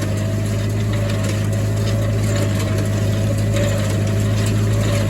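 Tractor engine running at a steady speed, a deep even drone with a faint steady whine above it.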